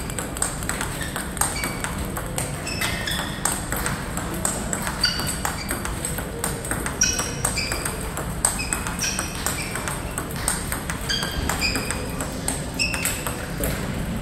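Table tennis rally: a plastic ball being struck with rubber-faced bats and bouncing on the table. It makes a quick, irregular run of sharp clicks, several a second, many with a short high ping.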